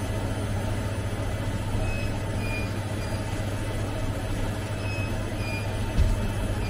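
Steady hum of a railway signal relay equipment room, with a pair of short, high electronic beeps repeating about every three seconds. A single dull thump about six seconds in.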